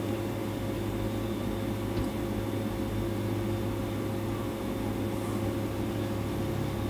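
Steady low hum with a faint hiss, unchanging throughout: background noise of a machine or electrical kind.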